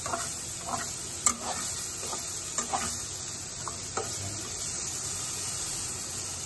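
Broccoli sizzling in hot oil in a nonstick pot as a slotted spatula stirs it. Short, irregular scrapes and taps of the spatula against the pot sound over a steady sizzle, mostly in the first four seconds.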